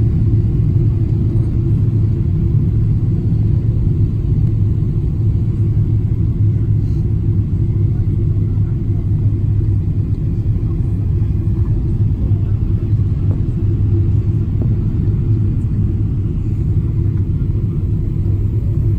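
Jet airliner cabin noise in flight: a steady, low rumble of engines and airflow heard from inside the cabin.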